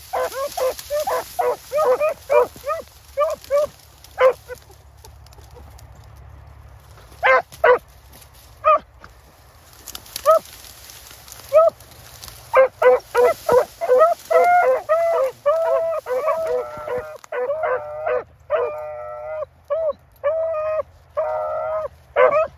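Hounds baying on a rabbit's trail: quick repeated yelping barks, a lull of a few seconds, then several voices giving tongue together with longer drawn-out bawls near the end.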